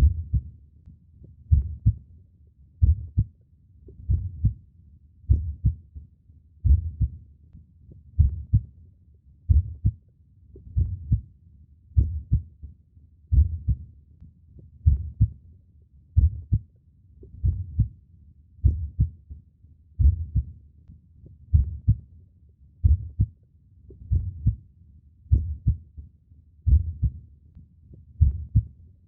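Human heartbeat: a slow, steady lub-dub of low double thumps, about one beat every one and a half seconds.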